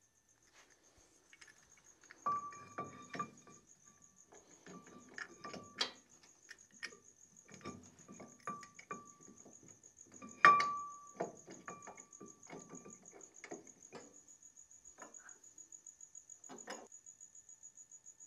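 Metal clicks, clinks and knocks as a brake caliper is handled and fitted over a new rear brake rotor, several of them leaving a short metallic ring; the loudest knock comes about ten seconds in. A faint, steady high cricket trill runs underneath.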